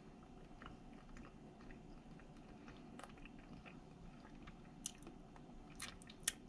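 A person chewing a mouthful of crab meat, faint, with a few sharp clicks in the last two seconds.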